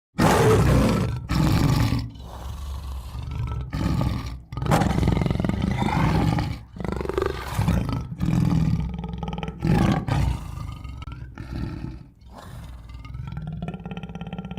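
Tiger roaring and growling over and over: a series of loud, rough roars, each a second or two long, with short breaks between them. The first roar cuts in suddenly.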